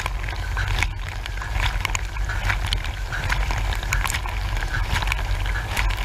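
Dishwasher wash cycle heard from inside the tub: water jets from the turning spray arm spattering against the walls and racks over a steady low rumble, with many sharp drips and taps scattered through it.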